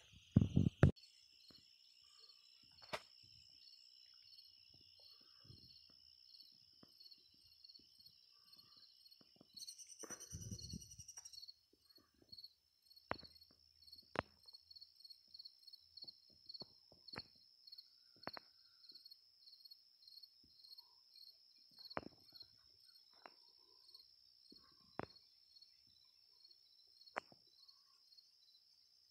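Crickets or similar insects chirping: a steady high buzz with a chirp repeating about twice a second, and scattered faint clicks. A brief low rumble comes in the first second, and a short burst of noise about ten seconds in.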